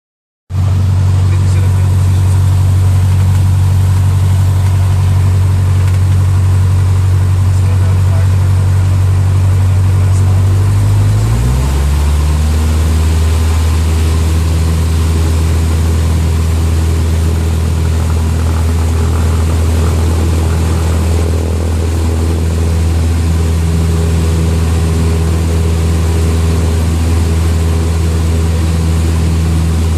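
Cessna 152's four-cylinder Lycoming engine and propeller running with a loud, steady drone that starts half a second in. About eleven seconds in its pitch drops slightly, then holds steady.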